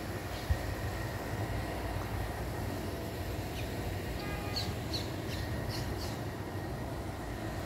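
Steady low outdoor rumble with a single bump about half a second in. Midway comes a quick run of about eight short, high bird chirps.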